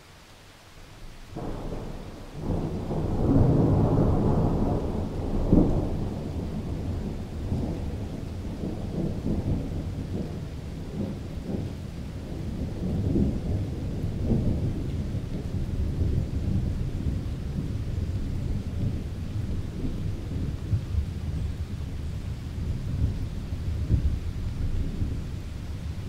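A thunderclap: a sudden crack about a second in, loudest over the next few seconds, then a long low rolling rumble with irregular crackles that carries on to the end.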